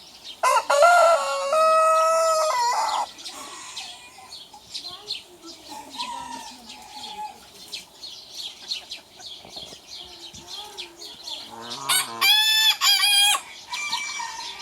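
Roosters crowing twice: a lower-pitched crow about half a second in, then a higher-pitched crow near the end, with soft chicken clucking between.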